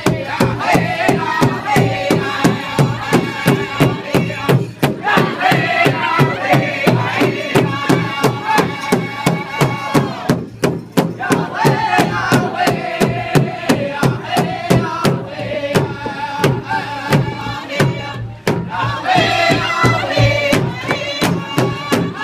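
Powwow drum group: several men singing together in a high, chanted song over a steady, evenly spaced beat on a shared big drum. The voices break off briefly between phrases while the drumbeat carries on.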